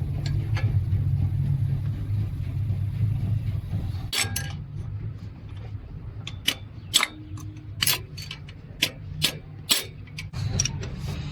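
Sharp metallic clicks and clinks of small metal parts and tools being handled, about seven spread over the second half, over a steady low hum.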